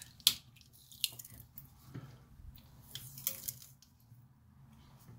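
Aluminum foil seal on a helium hard drive's cover crinkling and tearing as pliers roll it up, in scattered crackles and snaps, the sharpest about a quarter second in, dying down near the end.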